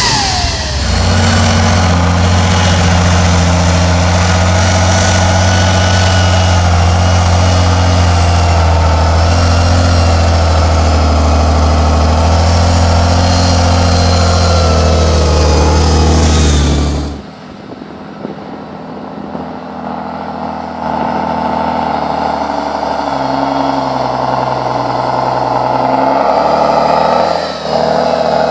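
Tatra 813's air-cooled V12 diesel engine running hard, loud and steady up close. About 17 seconds in it drops suddenly much quieter, then is heard from farther off, building up again.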